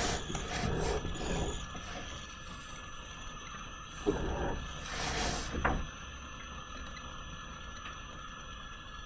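Low room noise with a faint steady hum and a few brief rustling, scraping noises, the longest about five seconds in.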